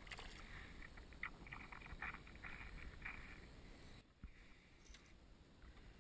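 Water splashing beside a kayak as a small bass is let go over the side, a run of light splashes and drips for about three seconds. A single light knock follows about four seconds in.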